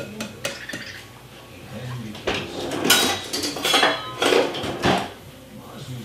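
Clinks and knocks of kitchenware, with several sharp knocks between about two and five seconds in: eggs being tapped on a glass mixing bowl to crack them.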